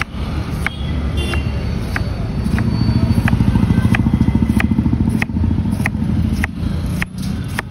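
Long knife slicing a peeled pineapple into rounds on a wooden board, each stroke ending in a short sharp tap of the blade on the board about every half second or more. Under it runs a motor vehicle engine, louder and pulsing fast in the middle, like a motorbike going by.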